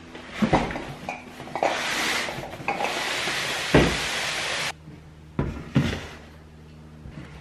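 Boxes and plastic bins being handled and set down on a wooden worktop: a few knocks, then a long rubbing scrape of cardboard and packaging that cuts off suddenly, followed by two hard thuds as plastic bins are put down.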